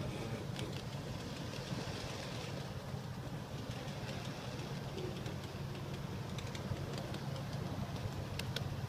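Model train camera car rolling along the track behind the train, a steady low rumble of wheels and running gear on the rails with a few sharp clicks, most of them near the end.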